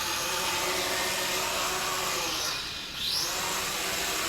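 Dromida Vista FPV quadcopter's motors and propellers whining at full throttle, sagging briefly about two and a half seconds in, then spooling back up. The single-cell lipo is close to exhausted.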